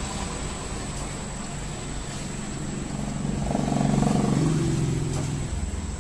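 A road vehicle's engine passing on the street, swelling to its loudest about four seconds in and then fading, over a steady low traffic rumble.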